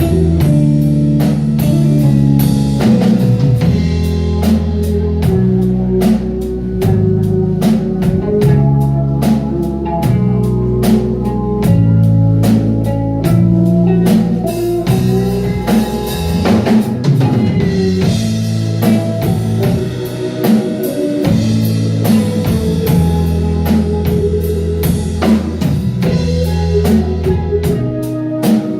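Rock band playing live: drum kit keeping a steady beat under electric guitar and bass.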